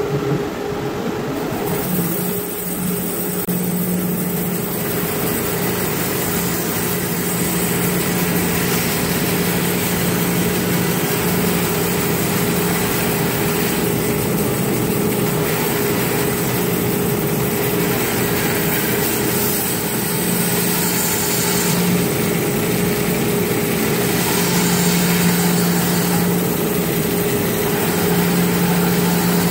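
Grizzly G0513X2BF 17-inch bandsaw running steadily, its 1-inch, 2/3 TPI bimetal blade resawing a spalted box elder log: a constant motor hum under the hiss of the coarse blade cutting. The cut picks up about two seconds in and carries on steadily.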